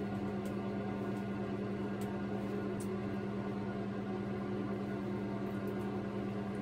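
A steady low hum with a row of overtones above it, unchanging throughout, with a few faint soft ticks.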